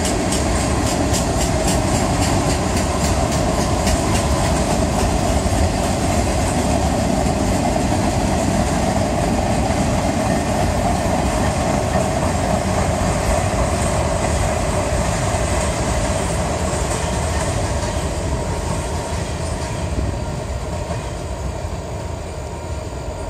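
Loaded freight cars rolling past: a steady rumble and rush of steel wheels on rail. In the first few seconds there is a rhythmic clickety-clack of wheels over rail joints. The sound fades over the last few seconds as the end of the train goes by.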